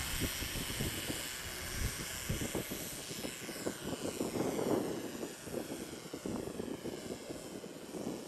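Small toy quadcopter's electric motors and propellers whining as it lifts off and flies away, growing fainter as it goes.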